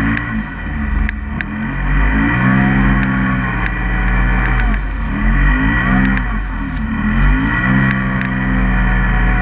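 Polaris RZR side-by-side's engine at high revs, heard from inside the cab, its pitch falling and climbing again several times as the throttle is eased off and reapplied while it ploughs through deep snow, running up to about 7,000 rpm. A few sharp ticks sound over it.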